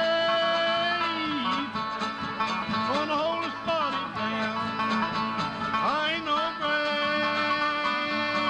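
Acoustic bluegrass band playing: two acoustic guitars, a five-string banjo and a mandolin. Long steady notes open and return near the end, with a sliding, wavering melody in between.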